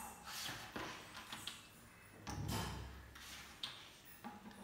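Light clicks and taps of carrom coins being set down on a carrom board's playing surface, with a duller, heavier knock of handling about halfway through.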